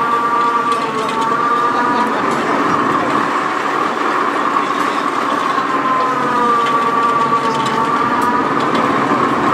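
Boom truck's diesel engine running under load for the winch, with a whine that rises and falls as hay bales are hoisted: once near the start and again about six seconds in.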